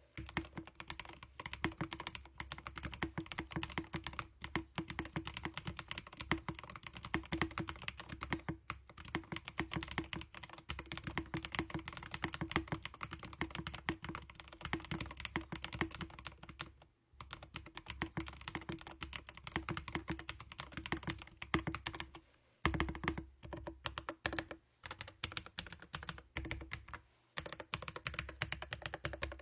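Typing on a mechanical keyboard with linear Blue Whale switches and PBT keycaps: a fast, steady run of key clacks, with short pauses a few times.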